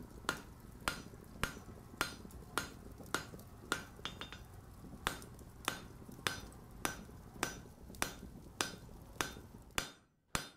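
Steady rhythm of hammer blows on an anvil, a little under two a second, each with a short metallic ring. A low background hum drops away near the end while the blows go on.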